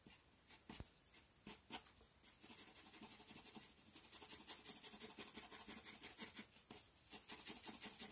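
Faint pencil scratching on paper: a few separate strokes, then from about two seconds in, a run of quick repeated hatching strokes.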